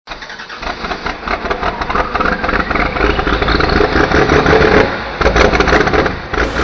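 A loud engine revving, climbing in pitch and loudness over about four seconds, easing off about five seconds in, then revving again briefly.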